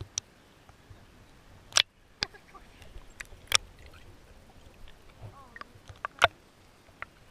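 Swimming-pool water sloshing and splashing around a camera at the surface as it dips in and out of the water, with a run of sharp splashes and plops, the loudest about two seconds in and just after six seconds.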